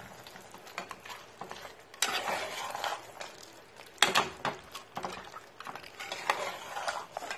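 Metal spatula stirring and scraping thick mutton curry against a metal pot, in a few slow strokes, with a sharp clink of metal on metal about four seconds in.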